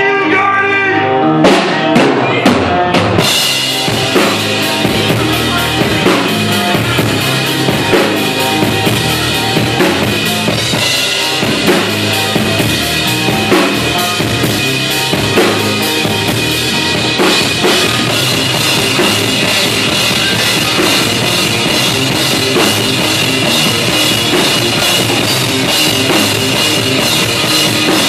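Heavy metal band playing live: drum kit, electric guitars and bass. A few hard stop-start hits in the first three seconds, then the whole band plays on loud and unbroken.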